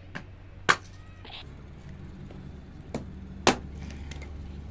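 Two hard chopping blows about three seconds apart, each with a lighter tap half a second before it.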